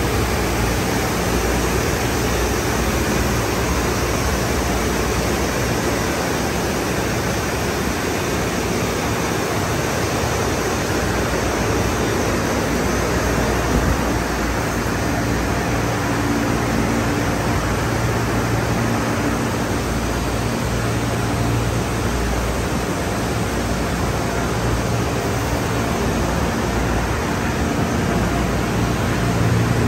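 Conveyor car wash tunnel equipment running around a car: spinning brushes and water spray make a steady rushing noise, with a low machine hum under it that grows stronger about halfway through.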